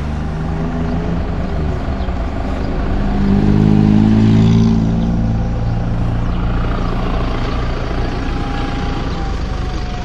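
Motor vehicle engine running steadily, with a vehicle passing on the road that grows louder a few seconds in and then fades away.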